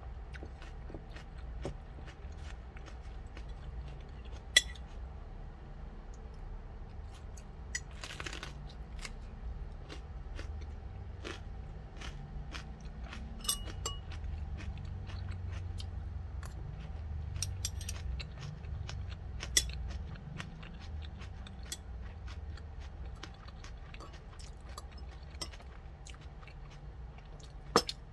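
A person chewing and biting crunchy food, a raw green cucumber pepper among rice and chicken, with an uneven low crunching throughout. Now and then there are sharp clicks of metal chopsticks and spoon against the dishes.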